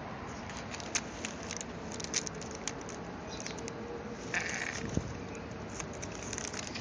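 A cat's snot-clogged nose sniffling: short wet crackles and clicks, with a longer breathy sniff a little over four seconds in.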